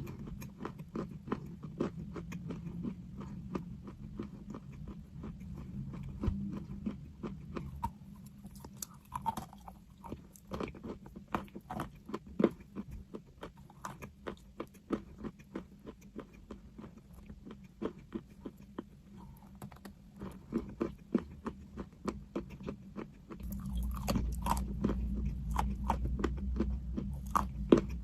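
Close-up crunching and chewing of chalk: many sharp crackles as pieces are bitten and ground between the teeth. A low hum underneath grows louder near the end.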